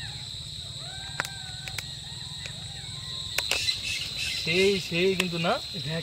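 Golden jackals howling: faint wavering calls at first, then a louder chorus of rising and falling howls from about four and a half seconds in. A steady high insect drone runs underneath.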